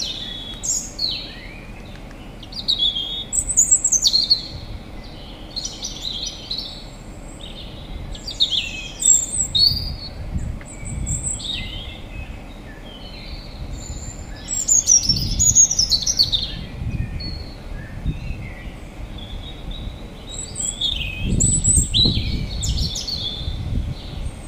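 Birds chirping and calling: short, high chirps and quick sweeping notes every second or so, several overlapping at times, over a low rumble that swells now and then.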